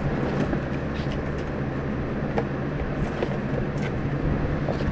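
A steady low machine hum, with a few light clicks and knocks as welding gloves and a welding helmet are handled and put on.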